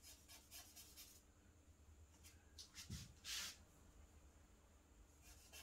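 Charcoal stick scratching on drawing paper in a series of short, faint strokes, the loudest and longest about three and a half seconds in, with a soft knock just before it.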